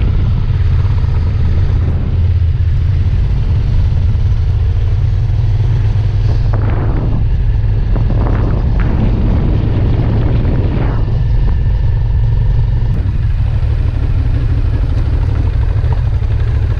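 Motorcycle in motion heard through an on-board camera microphone: the engine running under a steady, heavy low rumble of wind on the mic, with the sound swelling a few times midway.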